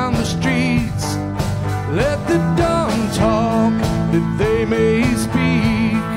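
Country-style gospel band playing an instrumental passage: bass and guitars over a steady drum beat, with a lead melody that wavers and slides up and down in pitch.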